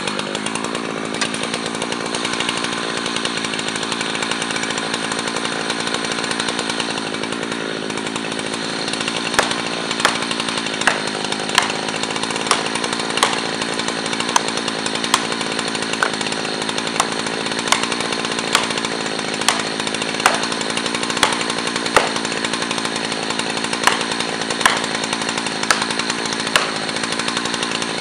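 Husqvarna 3120 chainsaw with a 50-inch bar left idling steadily while an axe pounds felling wedges into the back cut of a big pine. From about nine seconds in, the axe lands a sharp, ringing strike about every three-quarters of a second.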